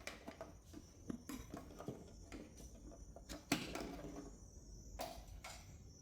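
Light plastic clicks and knocks from handling a truck tail light housing and twisting its bulb sockets out, with louder knocks about three and a half and five seconds in.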